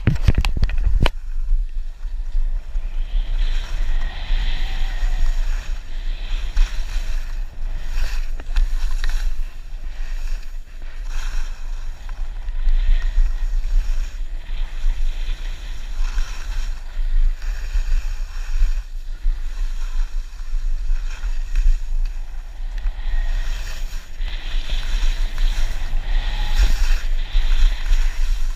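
Wind buffeting an action camera's microphone during a ski run, a heavy steady rumble, under the hiss and scrape of skis carving across the snow, which swells and fades with the turns.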